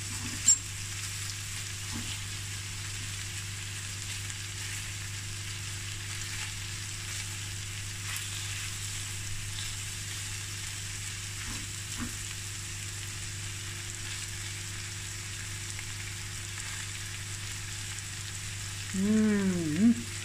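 Boneless chicken thighs sizzling steadily as they fry in a stainless steel pan on medium heat. About half a second in, a metal fork clinks sharply against the pan, and there are a few light taps later.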